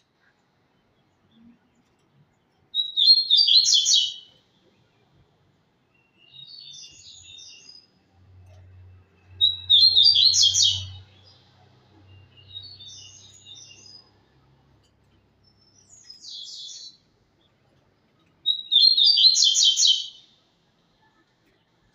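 Double-collared seedeater (coleiro) singing its 'tui-tui' song: three loud, high, bright phrases about seven to eight seconds apart, with softer, shorter phrases in between.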